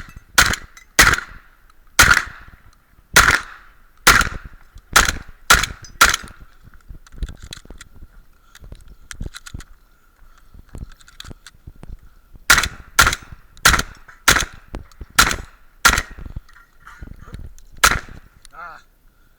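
Shotgun fired in rapid strings: about nine shots in the first six seconds, a pause of fainter clicks and knocks, then another quick run of about seven shots and a last single shot near the end.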